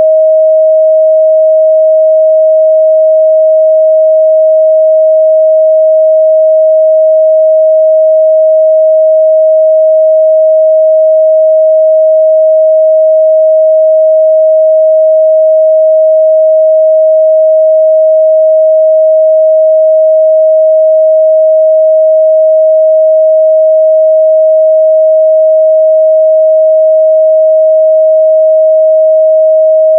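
A continuous 631 Hz sine-wave test tone: one steady pure pitch in the midrange, loud and unchanging.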